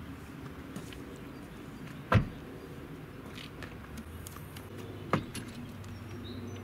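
A Smart fortwo's driver door slammed shut about two seconds in. A few light clicks follow, then a second, smaller thump about five seconds in as the car's rear hatch and tailgate are opened. A low steady hum runs underneath, and birds chirp near the end.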